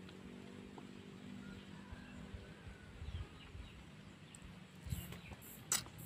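Faint outdoor ambience: a low steady hum with a few faint bird chirps. Near the end comes a sharp click among small handling noises as a small citrus fruit is peeled by hand.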